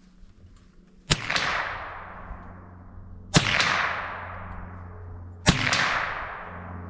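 Three .22 Long Rifle shots from a Marlin Model 60 semi-automatic rifle, fired about two seconds apart. Each crack is followed by a long echo that dies away.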